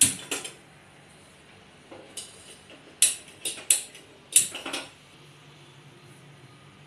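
Sharp metallic clicks and clanks at a gas stove as the burners are lit and the pans on them are handled, coming in irregular bursts: one at the start, a couple around two seconds in, and a quick cluster of loud ones past the middle.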